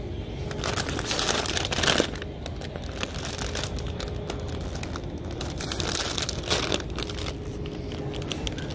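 Plastic chip bags crinkling as they are handled, loudest from about half a second to two seconds in and again around six seconds, over a low steady background hum.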